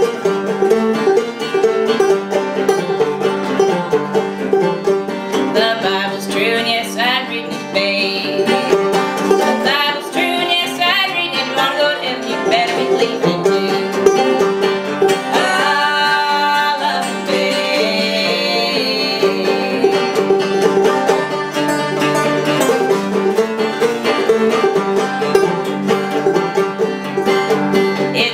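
Open-back banjo and acoustic guitar playing an old-time tune together, with a woman's singing voice coming in over them in stretches.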